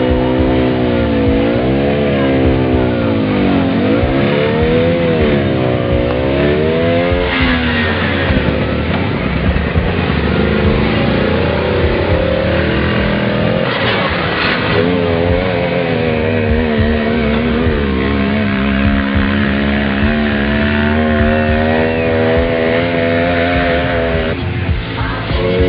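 Small off-road vehicle's engine revving up and down several times, then running at a steadier pitch with smaller rises and falls.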